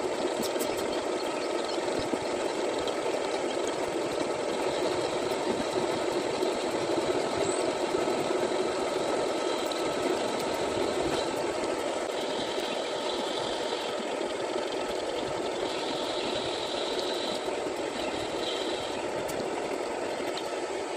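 Metal lathe running steadily while a carbide cutting tool turns a 1 mm undercut on a hydraulic pump part, to prepare it for metal spraying. A higher hiss of the cut comes and goes three times in the second half.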